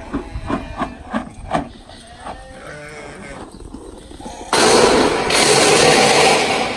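A flock of sheep bleating and shuffling as it is moved along. Near the end comes about two seconds of loud, even rushing noise.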